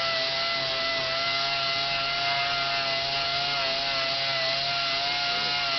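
Random orbital (DA) sander running at a steady, even whine while sanding a Corian solid-surface countertop to work out deep scratches.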